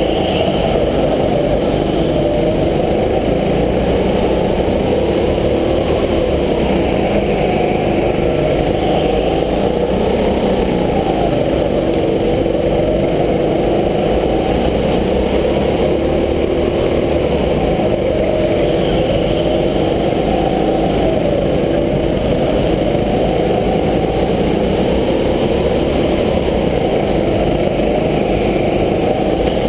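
Go-kart engine running hard at racing speed, its pitch rising and falling over and over as the throttle comes on and off through the corners.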